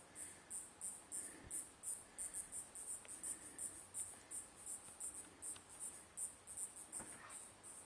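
An insect, cricket-like, chirping steadily: short, very high chirps repeating about three to four times a second, faint.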